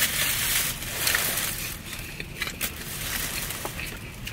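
Egg tart being bitten and chewed: crunching of flaky pastry for the first second and a half, then quieter chewing with small clicks.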